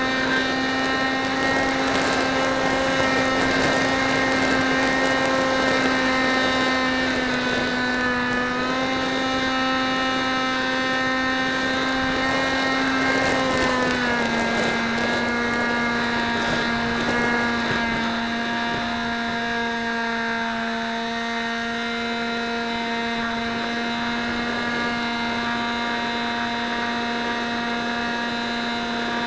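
A radio-controlled model aircraft's motor and propeller, heard from its onboard camera: a steady hum that steps down slightly in pitch twice, about a third of the way in and again about halfway. Wind rushes over the microphone during the first half.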